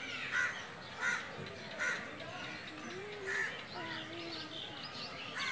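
Birds calling outdoors: one bird gives short, loud calls about once a second, over fainter chirping from other birds.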